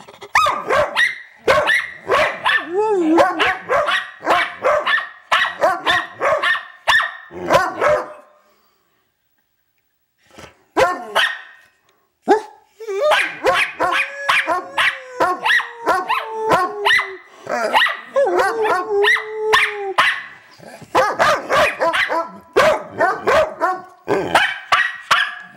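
Pointer dogs 'singing': rapid runs of barks and yowls together, with a pause of a few seconds about a third of the way through. After the pause, a long howl slides slowly down in pitch while short barks carry on around it.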